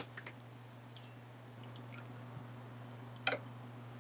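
Light clicks and taps of a freshly soldered silver-plate flatware bud vase being handled, with one sharper click about three seconds in, over a steady low hum.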